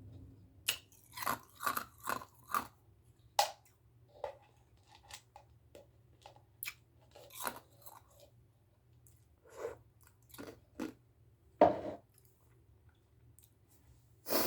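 Ice being chewed close to the microphone, with sharp crunches. About six come in quick succession in the first few seconds, then slower scattered crunches follow, and one is loudest near the end.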